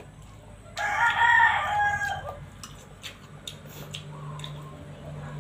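A rooster crows once, a call of about a second and a half starting about a second in. Faint clicks follow.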